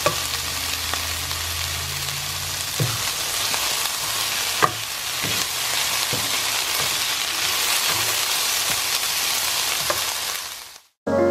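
Brussels sprouts and shredded vegetables sizzling steadily in a hot pan while being stirred with a spatula, which taps the pan a few times. The sizzle cuts off suddenly near the end.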